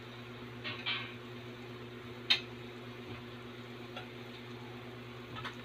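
Pot of pork broth boiling on the stove under a steady low hum, with a few light clicks and clinks of a metal ladle against the pot as the broth is dipped for tasting; the sharpest clink comes about two seconds in.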